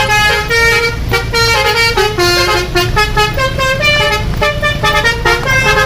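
Bus telolet multi-tone horn playing a basuri tune: a quick run of flute-like notes stepping up and down in pitch, over a steady low rumble.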